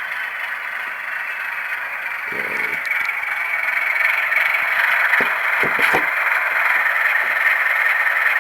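A model Baldwin AS616 diesel locomotive's Tsunami sound decoder playing a stopped diesel idling through its small onboard speaker: a steady, hissy engine sound that grows a little louder after about four seconds, with a few clicks near the middle.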